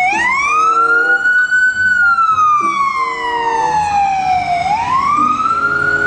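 Ambulance siren sounding a slow wail. It rises over the first two seconds, falls slowly for about two and a half seconds, then rises again near the end.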